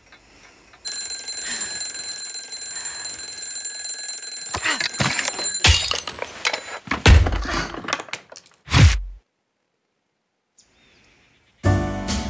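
Alarm clock ringing steadily, then a run of knocks and two heavy thumps as it is reached for on the floor and the ringing stops. After about two seconds of silence, music with drums starts near the end.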